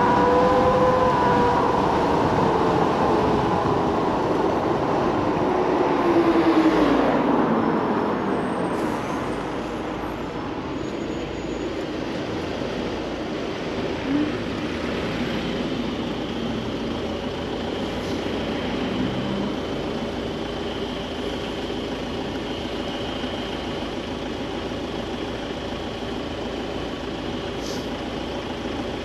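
Wind and road noise from riding an electric scooter, with a whine that falls in pitch as it slows in the first several seconds. The rest is a quieter, steady hum of surrounding traffic while the scooter waits, stopped, in a queue of cars, with a faint high steady tone over it.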